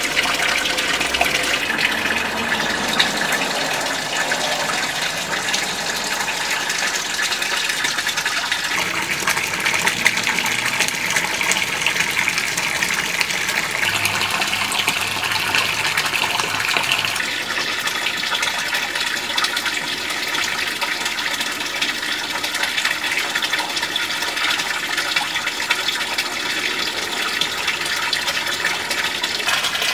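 Water from a garden pond fountain's spout pouring in a stream and splashing steadily into the pond.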